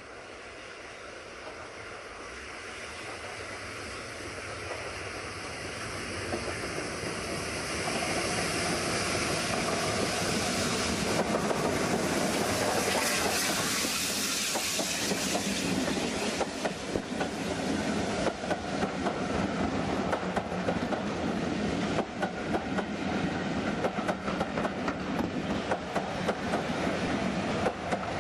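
Steam train passing close by: the LNER A1 Pacific locomotive 60163 Tornado draws nearer and louder, with a hiss of steam at its loudest as it goes past. Its coaches then roll by, their wheels clacking steadily over the rail joints.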